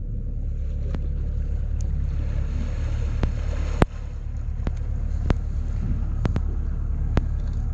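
A small boat's motor running steadily at low revs, with wind buffeting the microphone. About eight sharp clicks or knocks come through, the loudest about halfway through.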